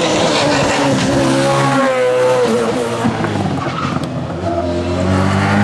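Race car engine running hard: its note falls as the car slows, then rises again as it accelerates.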